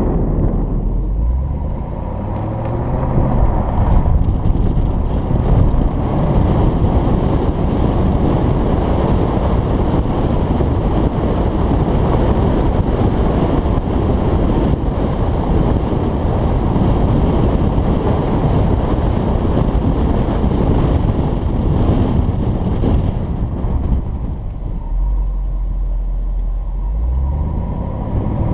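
2011 Jaguar XKR's supercharged 5.0-litre V8 exhaust on the move, with fuse 19 pulled so the active exhaust valves stay open. The engine note rises under acceleration in the first few seconds, is then largely covered by rushing wind and road noise at speed, and drops to a low steady burble before rising again near the end.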